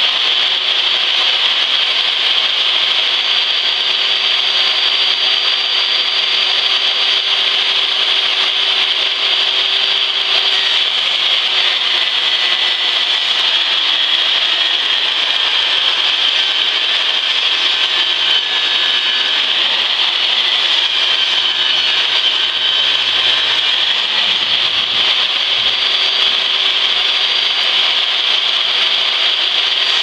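Jobsite table saw running steadily as it rips a long sheet of plywood lengthwise into a strip, with a high whine and the blade cutting through the wood.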